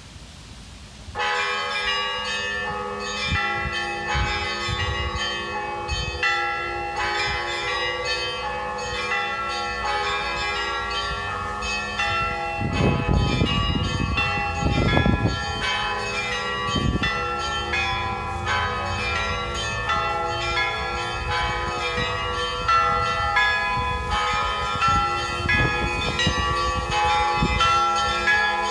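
Russian Orthodox church bells ringing the noon peal: several bells of different pitches struck together without pause, starting suddenly about a second in.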